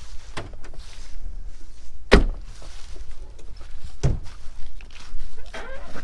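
Car doors of a 2003 Mercury Grand Marquis being shut: two solid thunks about two seconds apart.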